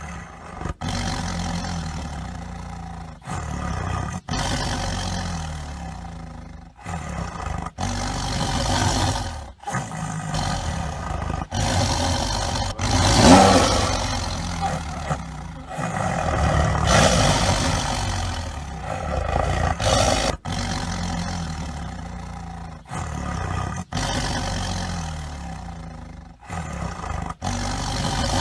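Tiger roaring: a series of deep, rough roars one after another, broken by several abrupt cuts. The loudest roar comes about halfway through.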